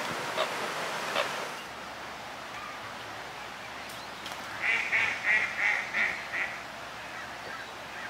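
A waterfowl calls six times in quick succession, about three calls a second, starting about four and a half seconds in. Before that, a steady rushing noise cuts off about a second and a half in.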